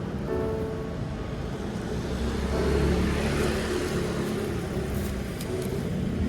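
Road vehicle noise: a steady rumble that swells to its loudest about three seconds in and eases off again, as of a vehicle passing close by.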